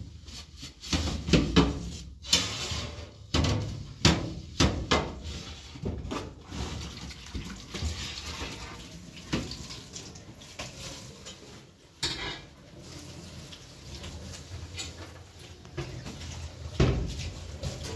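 Tap water running into a stainless steel sink while a refrigerator tray is rinsed and scrubbed, with sharp knocks and clatters of the tray against the sink, many in the first half and a few more near the end.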